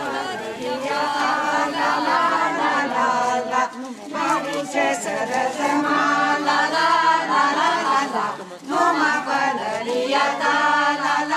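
A group of voices singing together unaccompanied, a slow song with long held notes.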